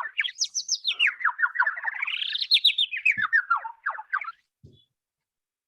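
Birdsong: quick runs of chirping notes that sweep up and down in pitch, stopping about four seconds in.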